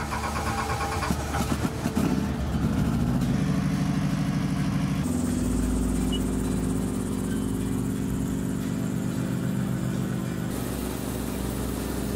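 Enstrom helicopter's piston engine being started: about two seconds of rapid starter cranking, then the engine catches and its pitch rises, settling into a steady run. The sound changes abruptly twice, about five and ten seconds in.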